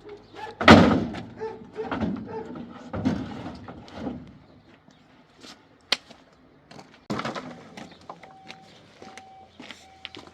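A loud bang, then several heavy thuds and scrapes, a sharp click and another bang. Near the end a short electronic beep starts repeating, a little faster than once a second.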